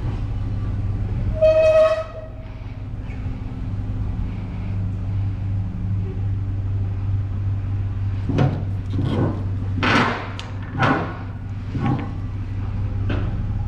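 A vehicle engine running with a steady low drone as it tows the tractor. About a second and a half in comes a short, high-pitched, horn-like tone, and in the second half a run of short sharp sounds.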